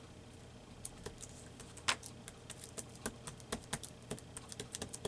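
Light, irregular clicks and taps of small hard objects being handled on a table. They start about a second in and come faster toward the end.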